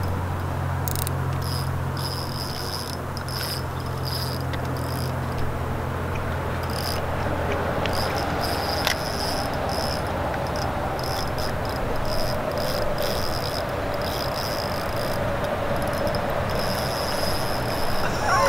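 Night insects, crickets or katydids, trilling at a high pitch in runs that start and stop every second or so. Under them a steady low hum fades out after about six seconds, with a constant hiss throughout.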